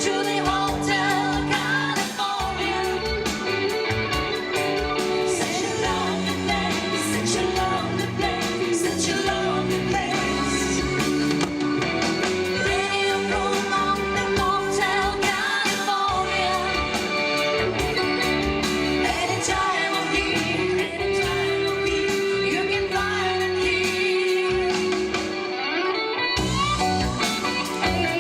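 Live pop-rock band playing with a woman singing lead over electric guitar, bass, keyboards and drums. The bass and drums drop out for a moment near the end.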